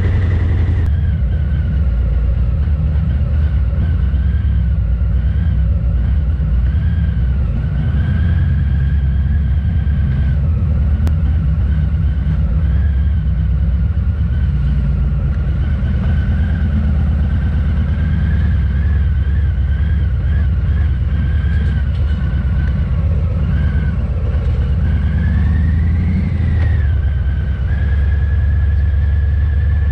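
Harley-Davidson Fat Boy 114's V-twin running steadily through a Vance & Hines exhaust while under way, with little change in engine speed. The recording is overloaded from the microphone gain being set too high, so the sound is mushy and blurred.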